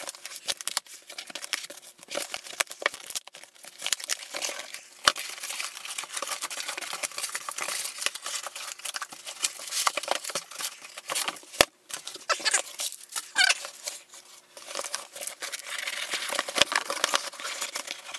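A cardboard shipping box wrapped in packing tape being ripped and cut open by hand: irregular tearing, scraping and crinkling of tape and cardboard, with a few sharp knocks.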